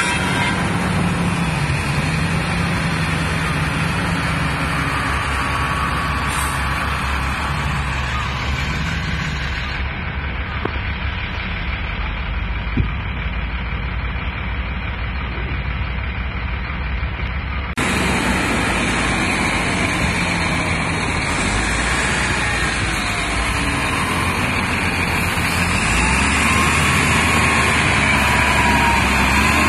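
Wheel loader's diesel engine running, its revs rising and falling as it works, with the sound changing abruptly twice.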